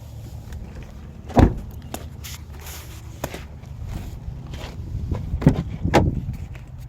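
A series of knocks and thumps from handling the vehicle's body, with footsteps. The loudest is a single heavy thump about a second and a half in, and two more come close together near the end.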